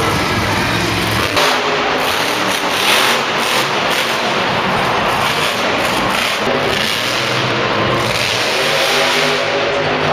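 Engine sound running and revving at a steady loud level, with its pitch stepping up and down. It is an engine sound effect laid over a toy monster truck that has no motor of its own.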